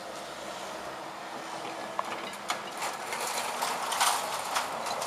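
Level-crossing barrier mechanism humming as the booms finish rising, fading out in the first second or so; then a car drives over the crossing, with rising tyre noise and sharp clicks and knocks as it runs over the rails.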